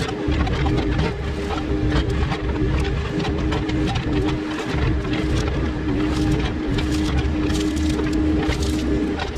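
Compact excavator's diesel engine running steadily under load, with a constant hum from the hydraulics. Frequent short cracks and crackles come through on top as the boom and bucket tear through brush.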